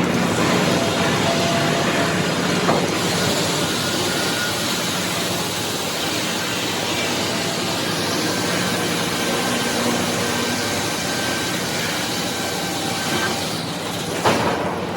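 Sawmill machinery, including the lumber chain conveyor, running steadily, with a knock about three seconds in and a louder, sharp knock near the end.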